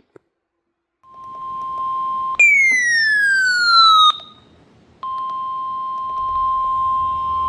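Electronic alert tones from weather-radio alert equipment. A steady tone fades in, then a loud falling electronic sweep lasts under two seconds. After a short gap a steady one-pitch alarm tone holds, the NOAA Weather Radio warning alarm tone that comes before a broadcast warning message.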